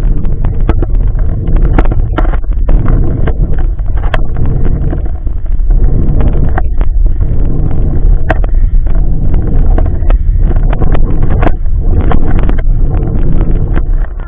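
Running-stroller wheels rolling over asphalt, a loud steady rumble with wind buffeting the microphone, broken by frequent sharp clicks and knocks as the stroller rattles over bumps and cracks in the pavement.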